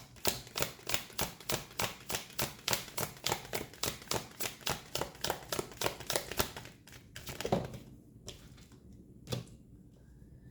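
A deck of tarot cards being shuffled by hand: a fast, even run of card slaps, about five or six a second, that stops about two-thirds of the way through and is followed by a few single card snaps.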